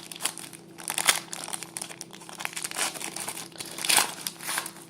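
Crinkling and rustling of trading cards and their pack wrappers being handled, in irregular strokes with the sharpest rustles about a second in and near the end.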